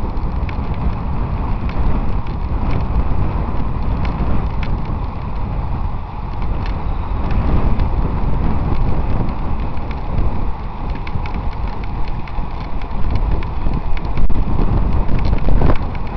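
Wind buffeting the microphone of a camera riding on a road bike at speed, a steady low rushing. Scattered light clicks and rattles from the bike come through it.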